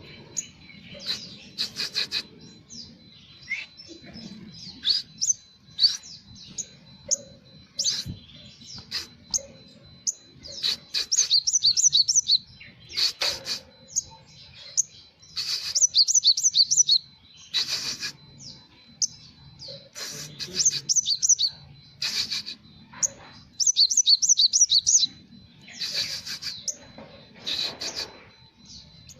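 Sunbird singing hard: a run of short high chirps broken every few seconds by fast, loud trilled phrases, its song filled with Java sparrow calls it has learned.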